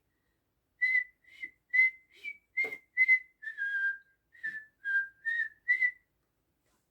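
A person whistling a simple tune: about a dozen short, clear notes near one pitch, a few dipping lower in the middle, with short gaps between notes.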